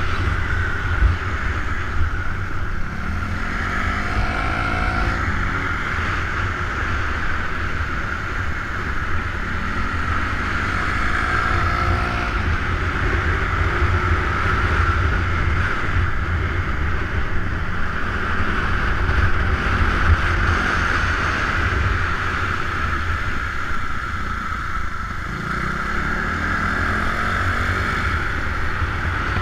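Wind rushing over a motorcycle-mounted action camera at riding speed, over the running engines of the motorcycles and scooters. The engine note rises a few times as the bikes accelerate through the corners.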